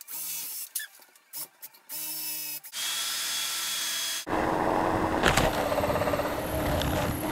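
Cordless drill whirring in several short trigger bursts, then running steadily as the bit bores up through the OSB roof sheathing. About four seconds in, a louder, rougher noise takes over.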